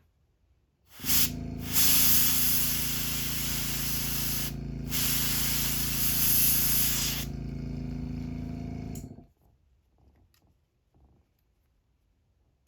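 Airbrush spraying paint in a short puff and then two long hissing bursts, over the steady hum of its small air compressor, which starts about a second in and stops near the end.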